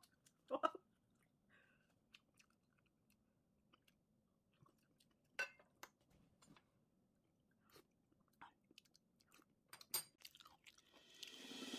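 Quiet eating: soft chewing of tofu-noodle shrimp pasta with sparse small clicks of a metal fork against the bowl, separated by near-silent gaps. Music begins to fade in at the very end.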